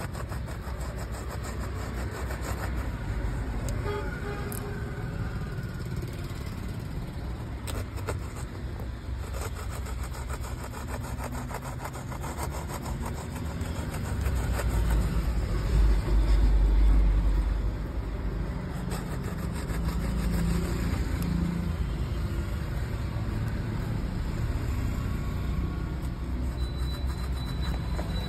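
A vehicle engine running with a low, steady rumble that swells louder for a few seconds about halfway through.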